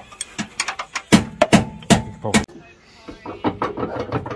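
Music with a steady, fast drum beat, with indistinct voices under it.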